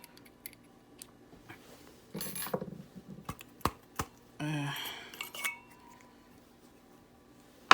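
Metal parts of a Robot Coupe immersion blender (shaft tube, foot and plate) clinking and knocking as they are handled: several light taps, a couple of brief rattles, and one sharp, loud click near the end.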